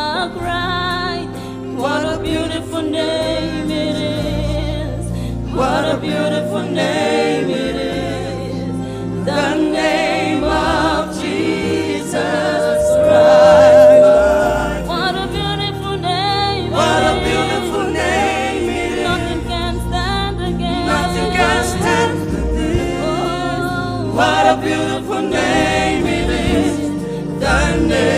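Live gospel worship song: a woman singing lead into a microphone, with backing voices over bass guitar and keyboard. About halfway through she holds one long note, the loudest moment.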